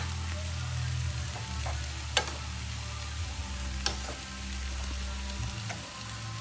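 Metal spoon stirring saucy spaghetti in a stone-coated pan, with the sauce sizzling over the heat. Sharp clinks of the spoon against the pan about two seconds in and again near four seconds, over a low hum.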